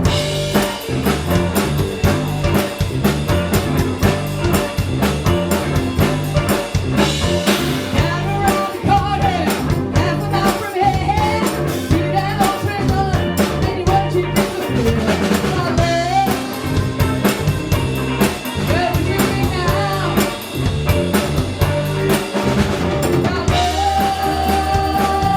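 Band playing a steady groove on drum kit, bass and guitar, with a wavering melody line, sung or played, coming in about eight seconds in.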